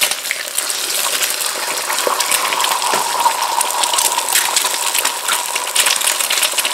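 Eggs frying in very hot oil in a wok: a steady crackling sizzle. Near the start another egg is cracked in.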